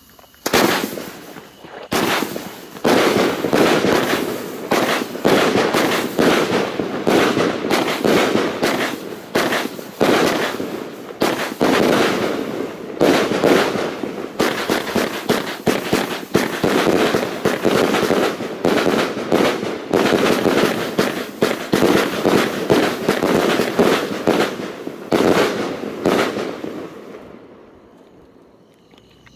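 Firework cake (Funke Blitzgewitter battery) firing shot after shot in quick succession: tails rising and loud titanium bursts of strobe-star bouquets, one on top of the next. The shots die away about two seconds before the end.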